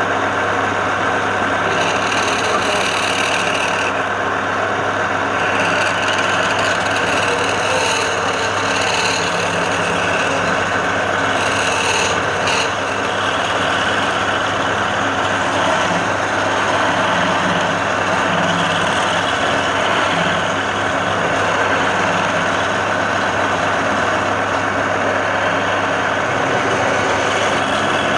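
Wood lathe running with a steady rasping of a tool working against the spinning wood, over a constant motor hum.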